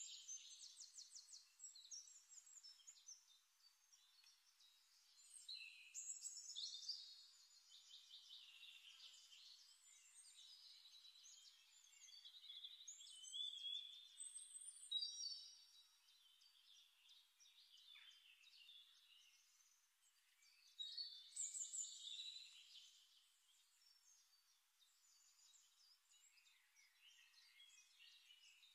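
Faint birdsong: high-pitched chirps and trills in scattered bursts with quiet gaps between.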